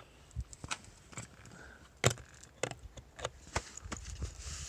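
Key clicking and rattling in the ignition lock of a KTM 300 XC-W dirt bike as it is worked back and forth; the lock is stiff and the key stuck. An irregular string of sharp clicks, the loudest about two seconds in.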